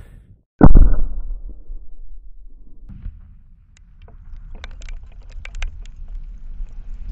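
A Tannerite target detonating: one sudden, loud blast about half a second in, its rumble dying away over a couple of seconds. It is followed by a scatter of sharp ticks as dirt and debris fall back to the ground.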